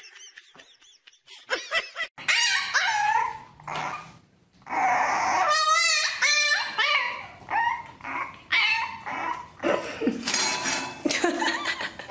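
Dogs whining, yipping and barking in many short high-pitched calls that bend in pitch, with a brief pause about four seconds in. The first calls come from a husky; after the pause a French bulldog puppy calls repeatedly in wavering whines and yips.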